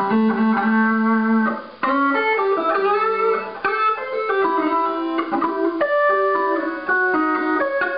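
Electric guitar played through a fixed wah effect and a splitter-mixer: a melodic line of changing notes, with a short break about two seconds in.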